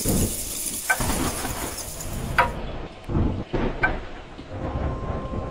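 Clock ticking and tocking, three slow strokes about a second and a half apart. Under them is a stormy hiss with low rumbling; the hiss drops away about halfway through.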